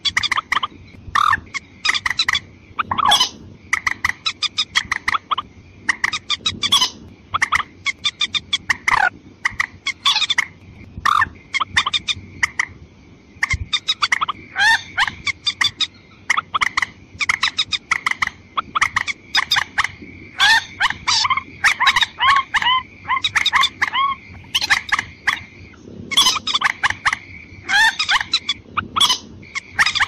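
Watercock calls played as a hunting lure: quick call notes repeating in clusters over and over, some sliding in pitch, with a steady high whine beneath them.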